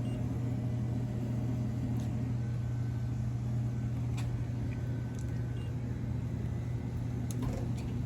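Vending machine running with a steady low hum, with a few faint clicks over it.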